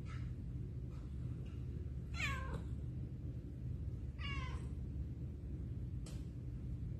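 Kitten meowing: two clear, high, falling meows about two and four seconds in, with fainter short ones near the start and near the end, over a steady low background hum.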